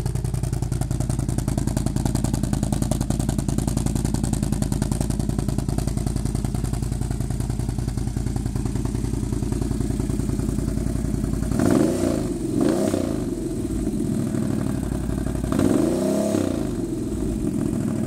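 Can-Am Outlander 800R ATV's V-twin engine through an HMF slip-on exhaust, loud and idling steadily, then blipped up and back down twice in quick succession about two-thirds of the way in and once more a few seconds later.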